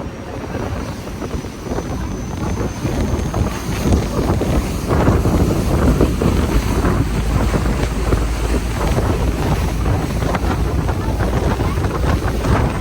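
Wind buffeting the microphone over the low rumble of a passenger ferry's twin MTU V16 diesel engines and water rushing past the hull, growing louder about four seconds in.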